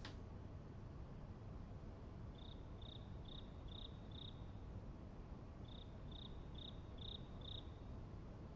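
An insect chirping in two runs of five short, high chirps, the runs about a second and a half apart, over a low steady hum of room tone.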